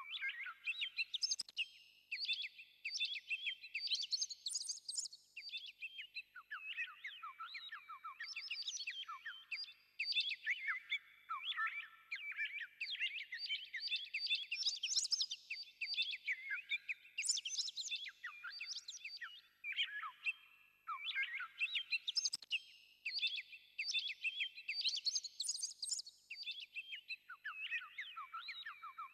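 Songbirds chirping and trilling continuously, many rapid, quick-rising notes in overlapping bursts.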